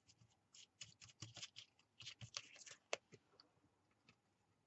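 Faint, scratchy strokes of a stiff flat paintbrush brushing over the paper-covered cardboard jigsaw piece, several a second, for about three seconds, followed by one sharper tap and a few light ticks.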